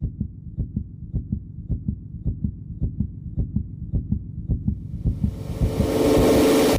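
Heartbeat sound effect: paired low thumps, just under two beats a second, building suspense. From about five seconds in, a rising swell grows under it and cuts off suddenly at the end.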